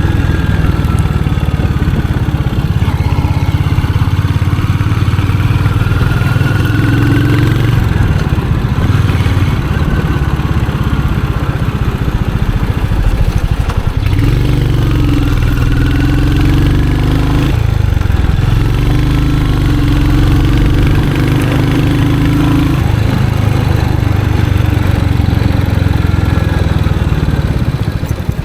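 Royal Enfield Hunter 350's single-cylinder engine and exhaust running under way, the pitch rising and falling several times as the bike accelerates and eases off.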